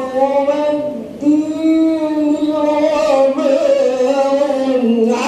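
Quran recitation (tilawat) by a single male qari, chanted in long held melodic phrases. There is a short breath about a second in, and the pitch sinks near the end of a phrase.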